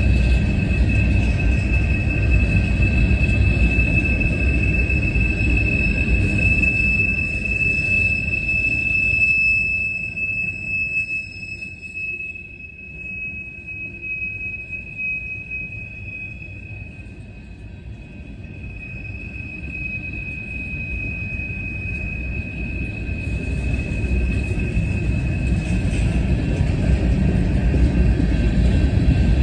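Freight train of covered hopper cars rolling past, its wheels rumbling on the rails with a steady high-pitched wheel squeal throughout. The rumble fades away about ten seconds in and builds back up over the last several seconds, while the squeal carries on.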